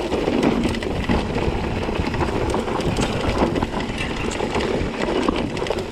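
Mountain bike rolling fast down a rocky trail: steady tyre and wind noise with a constant rattle of small clicks and knocks as the wheels hit rocks and the bike's parts shake.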